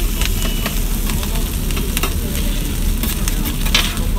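Chopped kokoreç (lamb intestines) sizzling on a flat-top griddle, with a metal spatula scraping and clicking against the plate several times as it is stirred, the sharpest clink near the end, over a steady low rumble.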